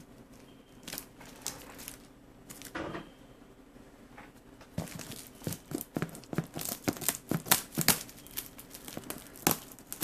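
Plastic strapping on a cardboard box being tugged and cut with scissors: crinkling plastic and a run of sharp snips and clicks, sparse at first and busier from about halfway through.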